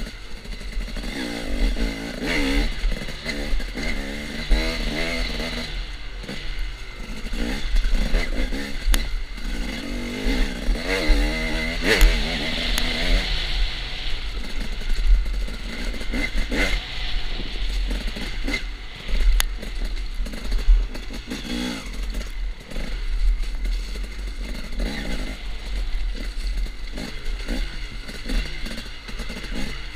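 KTM enduro dirt bike engine, heard from the rider's helmet, revving up and down again and again as it is ridden hard along a twisting woods trail. Sharp knocks and clatter from the bike hitting bumps and roots come through over a steady low rumble.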